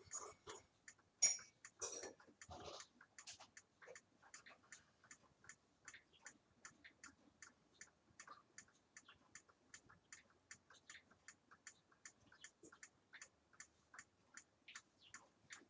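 Faint, steady ticking of a wall clock, about three ticks a second. A sharp knock sounds about a second in, with a brief rustle just after.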